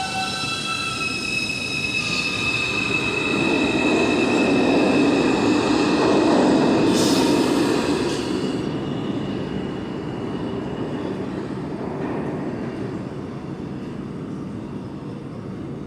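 New York City subway train running through the station: a rumble builds to its loudest about six seconds in and then fades, over several high steady tones of wheel squeal, with a brief hiss about seven seconds in.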